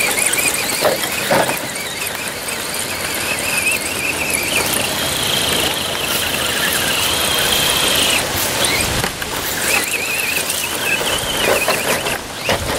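Scale RC crawler's electric motor and gears whining in high, wavering tones as it climbs a loose gravel slope, the pitch rising and falling with the throttle. The whine drops out briefly about two-thirds of the way through.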